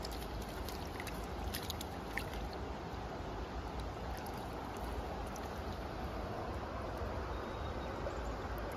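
Steady rush of a river's flowing water, the river running high. A few faint clicks sound in the first couple of seconds.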